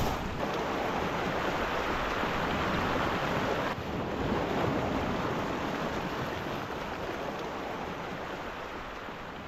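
Ocean waves washing against a rocky shoreline, a steady rush of surf with some wind on the microphone, slowly fading toward the end.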